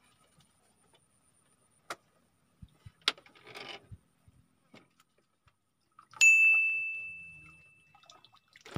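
A single clear, bell-like ding about six seconds in, ringing out and fading over about two seconds. Before it, a few faint clicks and a short rustle.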